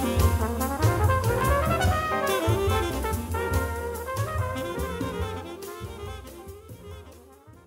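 Small-group jazz: saxophone and brass lines over drum kit with cymbals, the whole band fading out steadily to silence at the end of the track.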